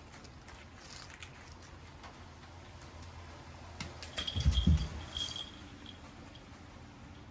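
A cat at play: scattered light taps and rustles, then a heavy thump about four and a half seconds in, with a short high ringing tone that breaks up around it.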